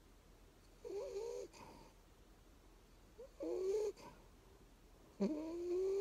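Sleeping bulldog puppy making whiny, pitched snoring sounds, three in a row about two seconds apart, each under a second long.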